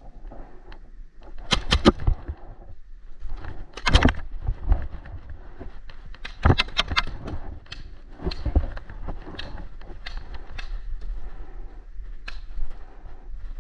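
Paintball marker shots: sharp pops, a quick cluster in the first two seconds, another single shot, then a second cluster midway and a few scattered single shots after, over low rustling of movement.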